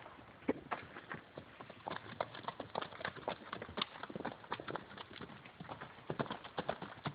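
Hoofbeats of several horses galloping, a rapid irregular clatter of hooves that grows denser about two seconds in.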